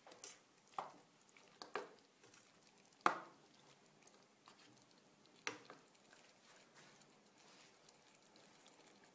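Spatula stirring chicken pieces in curry sauce in a nonstick frying pan: a few short scrapes and knocks against the pan, the loudest about three seconds in. It is quiet from about halfway through.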